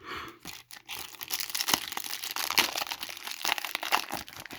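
Foil wrapper of a Chrome trading-card pack crinkling and tearing as it is opened, a dense crackle of many small snaps.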